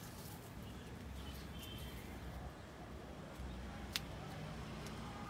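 Outdoor background: a steady low rumble with a few faint, short bird chirps, and one sharp click about four seconds in.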